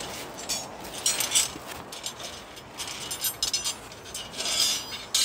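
Scrap steel rebar offcuts clinking and clattering against each other as they are handled and piled into a woven sack, in irregular bursts of metallic clinks, loudest near the end.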